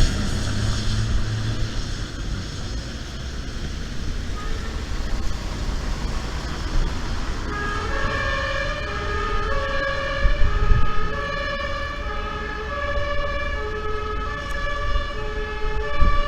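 Rushing wind-like noise, then about halfway through a siren sounding a run of held tones that step up and down between several pitches, more than one at a time.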